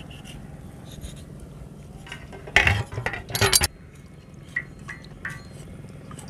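A kitchen knife and stainless-steel pots clinking and scraping as small fish are scored over a pot of water. There are two loud half-second bursts of noise near the middle, then a few light clicks.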